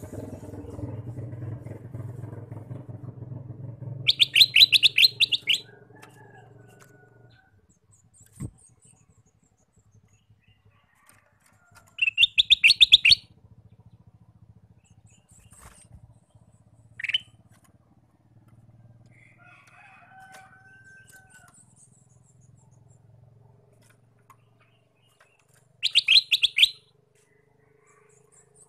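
Male ruby-throated bulbul (kutilang emas) giving three loud bursts of rapid repeated high notes, each a second or so long and spread well apart, with a few softer single calls in between. A motor vehicle hums in the background through the first several seconds, then fades.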